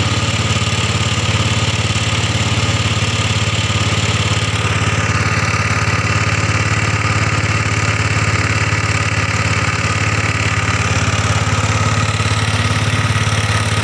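Motor of a small wooden river boat running steadily, holding one speed while the boat is under way.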